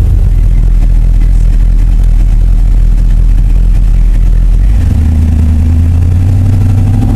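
Lifted Dodge pickup's big-cam engine running as the truck drives, heard from inside the cab: a steady low drone that steps up in pitch about five seconds in as the engine revs higher.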